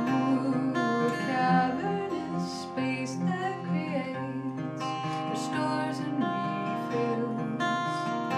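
Takamine acoustic guitar with a capo, played steadily in a song accompaniment, with a voice singing over it in places.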